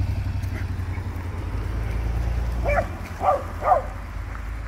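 A motorcycle engine idling, its note dropping away about three seconds in, as a dog barks three times in quick succession.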